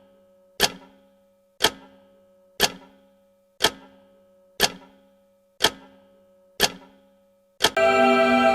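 Clock ticking once a second, each tick sharp with a short ringing tail. Near the end, slow sustained music comes in.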